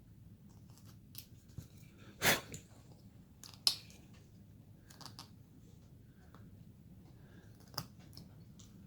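Carving knife cutting and scraping basswood by hand: a few short, irregular cuts, the loudest about two seconds in and another sharp one a second or so later.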